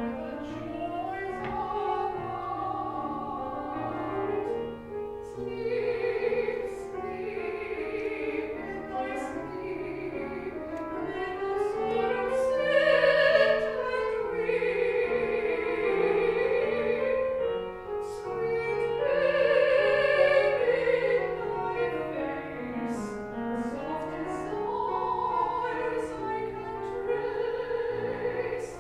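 A classical male voice singing a slow art-song line with long held and gliding notes, accompanied by a Steinway grand piano. The voice swells to its loudest about halfway through and again a little later.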